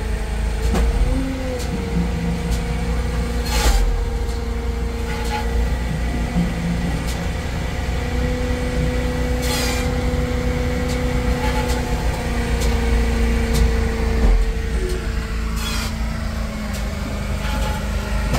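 Heavy machinery running steadily: a diesel engine and hydraulics heard from inside a loader's cab, with a firewood processor working nearby. Its pitch shifts slightly now and then. Three brief clatters come about six seconds apart.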